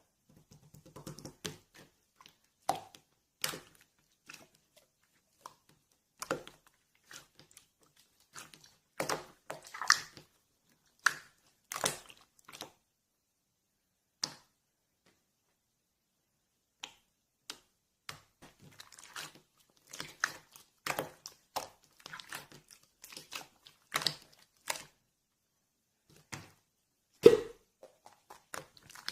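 Irregular close-up handling noises: short crackles, crinkles and squishes with quiet gaps between them, and one louder snap near the end.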